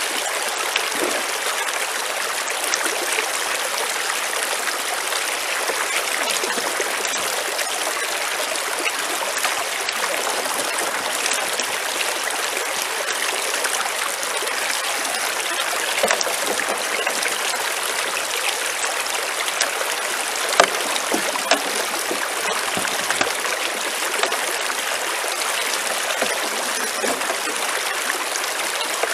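Creek water rushing steadily through a small metal gold-washing sluice and over the stones around it, with a few brief splashes a little past the middle.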